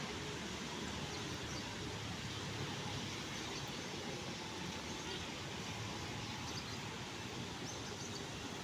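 Steady outdoor background noise, a low rumble with hiss, with a few faint high chirps.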